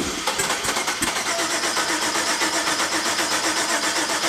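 Twin-turbo Fox-body Mustang engine being started, with a rapid, even pulse.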